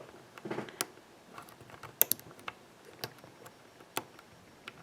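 Faint, irregular small metallic clicks and ticks of a hook pick probing the pin stacks inside a Master Lock ProSeries 6121 padlock's keyway, held under tension by a tension wrench. The pins are being checked one by one from the rear to the front.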